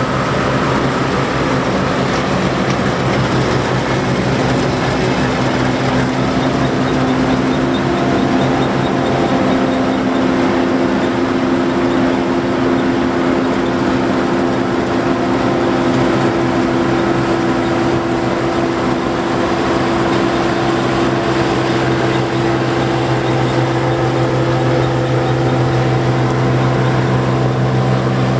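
John Deere 4425 combine's 117 hp engine and threshing machinery running steadily while harvesting wheat: a loud, even drone with a steady mechanical hum. A higher hum comes in about seven seconds in.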